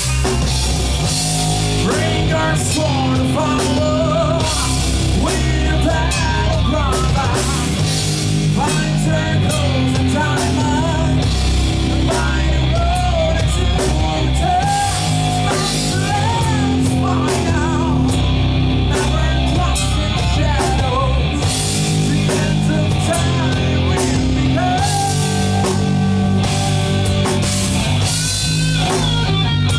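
Rock band playing live: drum kit, bass and electric guitars, with a melodic lead line bending up and down over sustained low chords.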